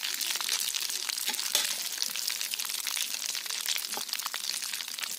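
Small fish frying in hot oil in a kadai: a steady, dense sizzle and crackle of spitting oil.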